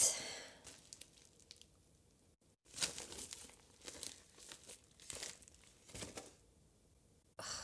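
Plastic shipping mailer bag crinkling and rustling in irregular bursts as it is handled, starting a few seconds in.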